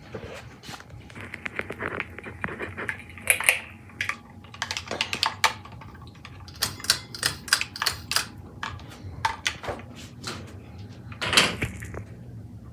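Irregular run of sharp clicks and taps, often in quick clusters, over a steady low hum, with two short hissy bursts about three seconds in and near the end.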